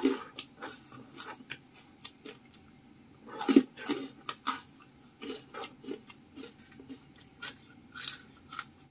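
Close-miked eating sounds: a run of short, wet clicks and lip smacks from chewing small scraps of food, with fingertips tapping and picking at a wooden tray. The loudest smack comes a little after halfway.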